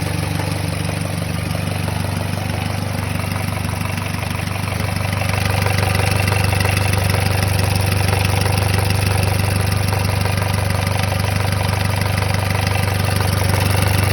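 Mazda CX-7 engine idling steadily, with a knock from inside the engine whose cause the owner does not know. It gets a little louder about five seconds in.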